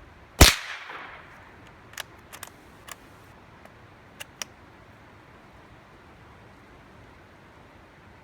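A single gunshot about half a second in, echoing out over about a second, followed by several much fainter sharp cracks over the next few seconds.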